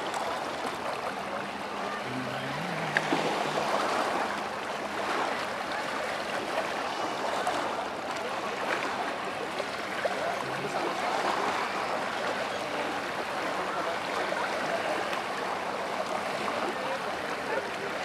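Small lake waves lapping and splashing against the shore, a steady wash of water sound, with a faint low hum underneath.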